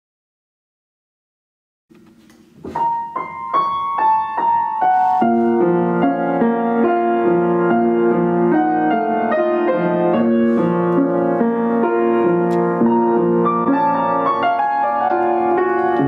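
Piano practice in a jazz style. After about two seconds of silence a few single notes are struck, then from about five seconds in the playing settles into steady chords with a melody over them.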